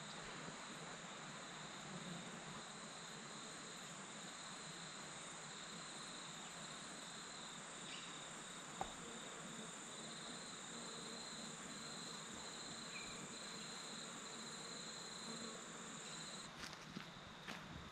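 Insects chirring steadily: a continuous high-pitched trill and a lower trill that pulses on and off, over a faint steady background hiss. The higher trill stops about a second before the end, followed by a few soft clicks.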